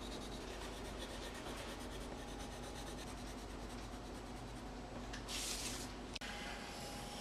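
Coloured pencil scratching on paper in rapid back-and-forth shading strokes. There is a brief louder rustle about five seconds in and a sharp click just after.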